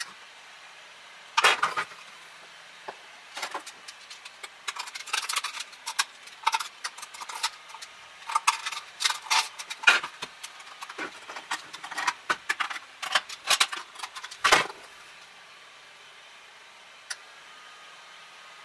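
Hard 3D-printed plastic airframe parts clicking and knocking as they are handled, fitted together and set down on a table, in irregular clusters of sharp clicks. The clatter stops about fifteen seconds in, with one last click a little later.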